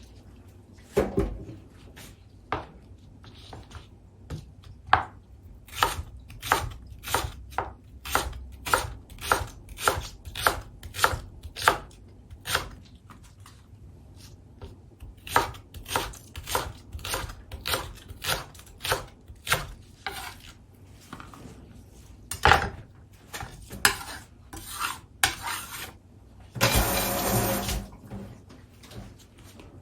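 Kitchen utensils and dishes clicking and knocking in a quick, uneven run of sharp strokes, about two a second, with a short rush of noise near the end.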